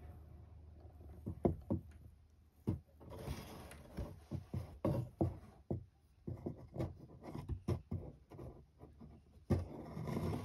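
Irregular soft taps, rustles and scrapes of a stiff strip being jiggled in front of a cat as the cat paws at it, with a sharper tap near the end.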